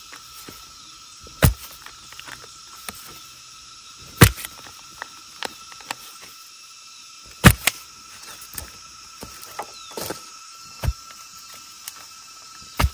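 Five sharp knocks, roughly three seconds apart, with lighter clicks and taps between them, over a steady drone of insects.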